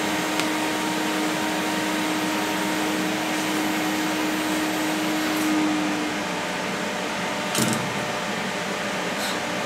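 Steady hiss and hum from TIG welding equipment working stainless steel, with a low steady tone that stops about two-thirds of the way through. A single sharp clink comes near the end.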